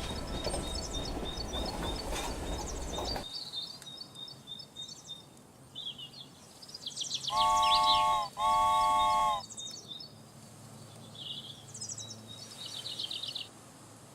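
Birds chirping, with a train horn sounding two long blasts at one steady pitch, each about a second, a little past halfway. A louder sound before them cuts off abruptly about three seconds in.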